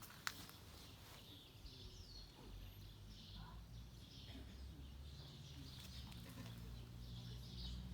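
Faint chirping of small birds, short high calls repeated every second or so, over a low hum that grows louder near the end.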